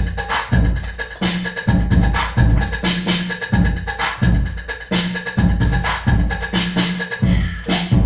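Dance music from a funk melody DJ mix: a drum-machine beat with heavy kick drums and bright claps or hi-hats, with no vocals.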